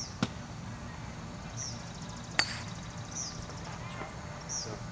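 A golf club strikes a teed ball about halfway through: one sharp crack with a brief metallic ring. A bird repeats a short, falling high chirp about every second and a half, and a lighter click comes just after the start.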